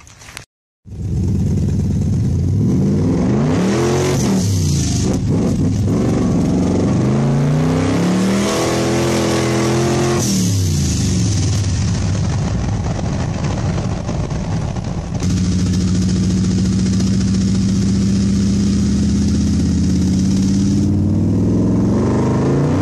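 Tuned, turbocharged car engine heard from inside the cabin under hard driving, its pitch rising and falling several times as it revs and shifts through the gears, then running at a steady pitch while cruising, and rising again near the end.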